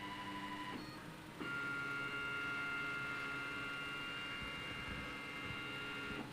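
OX CNC machine's stepper motors whining steadily as they drive the axes at a low feed rate. The tone breaks off just under a second in, and after a brief pause resumes at a different pitch for the next move.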